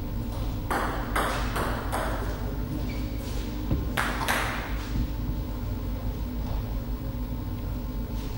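Plastic table tennis ball bouncing: a quick run of sharp clicks about a second in and two more about four seconds in, over a steady hall hum.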